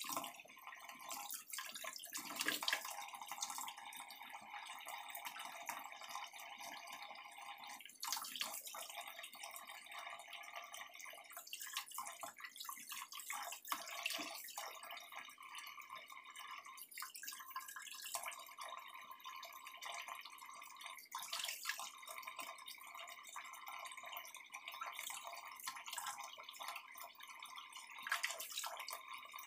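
Kitchen tap running into a stainless steel sink while kitchen scissors are rinsed under the stream, with irregular splashes and clicks as the scissors are turned and handled.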